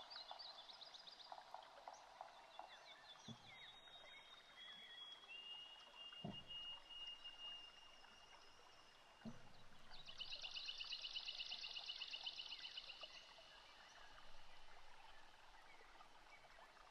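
Faint outdoor nature ambience of small birds singing: scattered chirps, a long thin whistle, and a rapid trill about ten seconds in. Three soft low thumps come about three, six and nine seconds in.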